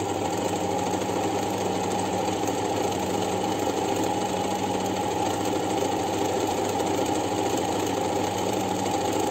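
Janome 393 sewing machine running steadily at constant speed, a steady motor hum with fast needle-mechanism noise. It is stitching a decorative pattern stitch (selector on F) at full zigzag width.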